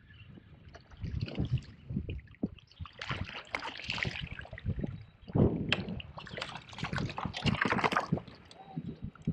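Water splashing and sloshing close to a kayak, with many irregular knocks and handling noises.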